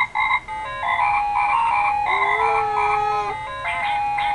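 Electronic toy tune from a baby walker's musical play tray: a tinny, beeping melody of quick stepped notes.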